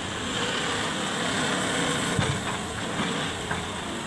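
Diesel engine of a Hitachi 200-class hydraulic excavator running steadily while the machine swings.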